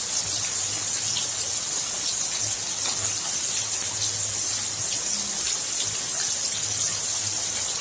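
Steady heavy rain falling and splashing, an even hiss with no letup.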